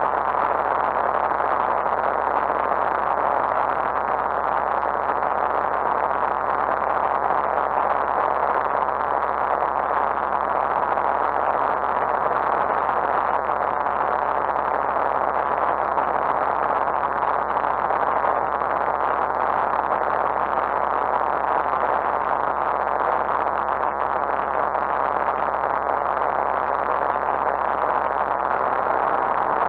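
Steady drone of engine, propeller and rushing air inside the cockpit of a Lightwing GR912 light aircraft in flight, its Rotax 912 engine held at a constant power setting.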